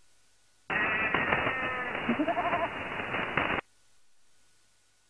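Shortwave radio signal on 6660 kHz heard in lower sideband: about three seconds of weird animal-like calls with sweeping, wavering pitch, narrow and thin-sounding. It switches on and off abruptly, leaving faint hiss and a faint steady tone on either side.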